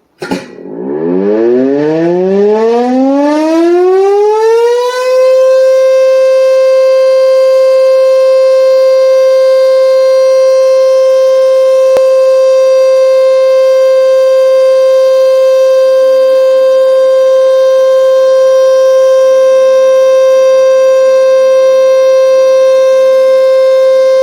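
Motor siren winding up from a low growl: its pitch climbs over about five seconds to a steady high tone, which it then holds.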